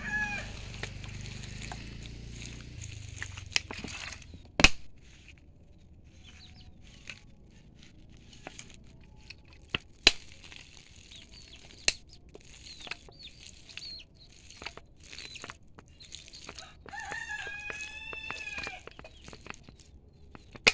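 A rooster crowing: one crow trails off at the start and a full crow of about two seconds comes near the end. A few sharp clicks, the loudest about four and a half seconds in, and faint short bird chirps fall in between.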